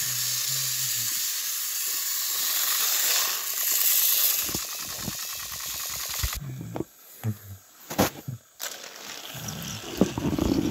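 Battery-powered toy train motors running on plastic track, a steady whirring hiss that cuts off suddenly about six seconds in. After it come scattered sharp clicks and knocks of plastic toys being handled, with a louder low bump near the end.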